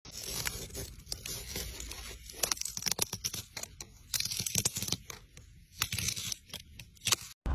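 A metal carving loop cutting into a crisp raw root vegetable. Its flesh cracks and splits with irregular runs of short crackling snaps and scraping, pausing briefly now and then.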